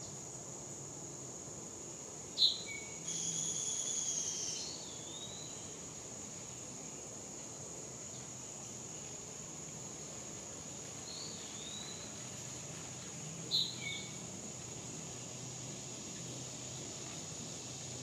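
Steady high-pitched insect drone with wild birds calling over it: a sharp call a couple of seconds in, then a short song, a softer call later, and another sharp call near the end.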